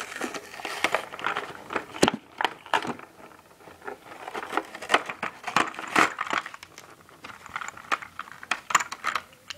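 A plastic blister tray being pulled off its cardboard card and handled, crinkling and crackling with many sharp clicks; the loudest click comes about two seconds in.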